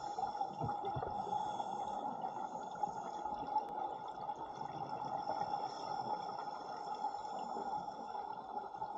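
Underwater ambience: a steady muffled water hiss with faint gurgling and a couple of low thumps about a second in.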